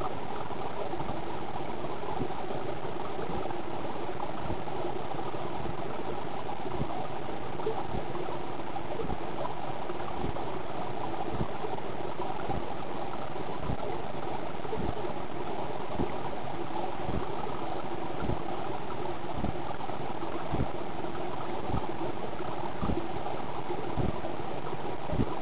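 A small motor or pump running steadily with a hum, with a low thud about once a second that grows plainer in the second half.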